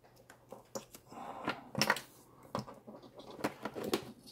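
Power plugs and cables being handled: a mains plug pushed into its socket and a yellow XT60 battery connector pushed together near the end, giving a string of sharp plastic clicks and knocks over rustling cords.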